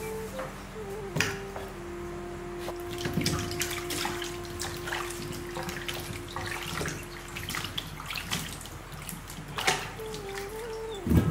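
Water sloshing and splashing in an earthenware pot as hands rub and turn pieces of young jackfruit to wash them, with irregular splashes throughout. A held melodic tone runs underneath.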